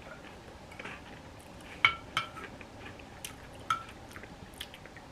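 Dishes and utensils clinking: a few sharp ringing clinks, two close together about two seconds in and another near four seconds.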